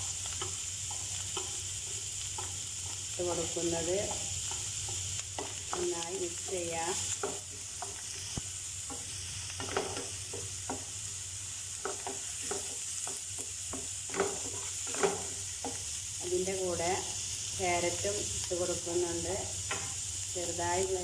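Chopped onions and green chilli sizzling in oil in a non-stick frying pan, stirred and scraped with a wooden spatula. The spatula makes short ticks and scrapes against the pan in irregular clusters over a steady frying hiss.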